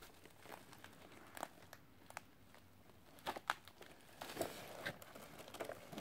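Nylon chest rig and pouch being handled: fabric rustling with scattered short crinkles and clicks, busiest and loudest about three to five seconds in.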